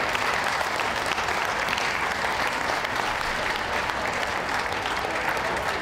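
Audience applauding steadily: continuous clapping from the ringside crowd.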